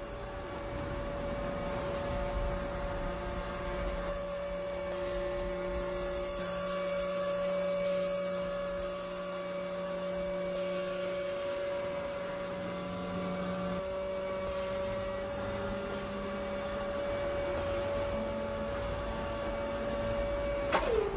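Electric-hydraulic cab-tilt pump of a pumper fire truck running with a steady whine as the tilted cab is lowered onto the chassis, stopping near the end with its pitch falling away.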